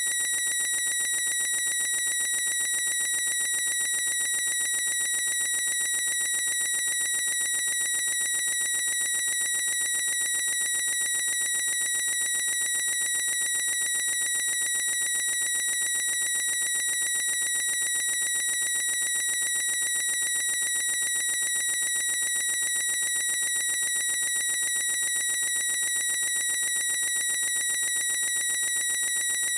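Looped high-pitched squeal of a boy's voice, held at one unchanging pitch without a break, with a fast, even flutter.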